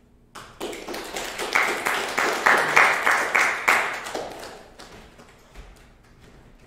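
Small audience applauding: clapping starts about half a second in, is strongest for the next few seconds, then tapers off to a few scattered claps.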